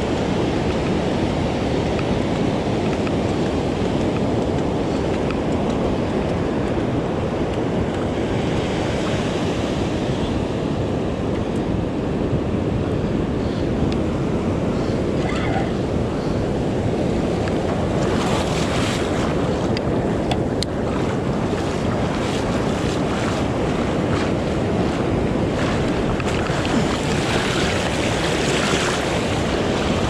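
Ocean surf breaking and foamy wash running up the sand, with steady wind buffeting the microphone. The hiss of the wash swells louder about 18 seconds in and again near the end.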